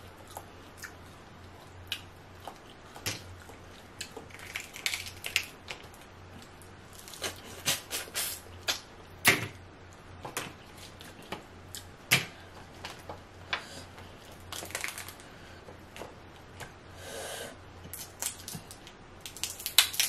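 Crawfish and king crab shells cracked and peeled by hand close to the microphone: irregular sharp cracks, snaps and clicks, a few much louder than the rest.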